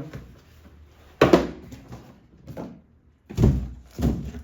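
Knocks and thuds as bicycle frame parts and their packaging are handled and set down: a sharp knock about a second in, the loudest, a softer one after it, then two duller thuds near the end.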